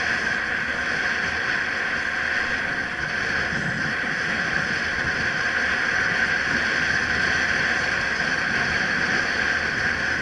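Steady riding noise from a camera on an electric bicycle climbing a steep street: wind and road noise with a constant high hum.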